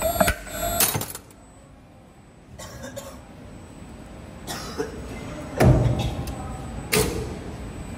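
CNC wire forming machine clanking as it bends and cuts heavy 9.5 mm steel wire: a series of metallic knocks and thuds, with a cluster in the first second and the heaviest thud a little past halfway.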